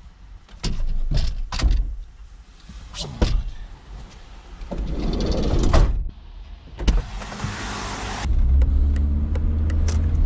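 Knocks and rustling as doors and loaded things are handled inside a VW bus. Near the end, after a few seconds of whirring hiss that stops suddenly, the engine starts and runs with a steady low hum.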